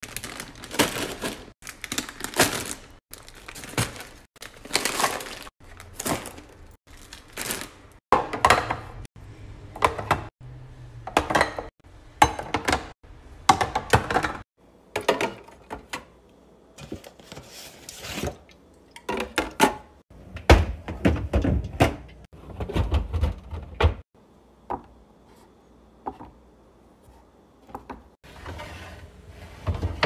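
Groceries, drink cans and fruit being set down and slid into woven and clear plastic fridge storage bins: an irregular run of knocks, taps and clatter, quieter for a few seconds near the end.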